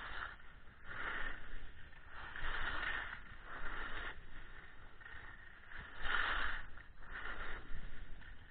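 Skis scraping and swishing over packed snow, in surges that rise and fade every second or two as the skier carves turns.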